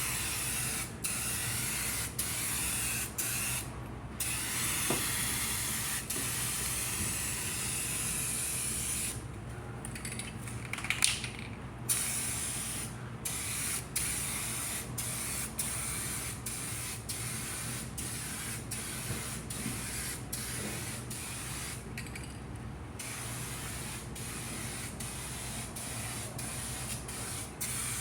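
Rust-Oleum paint spraying in short passes: a steady hiss that stops briefly again and again, with a few longer pauses, over a steady low hum.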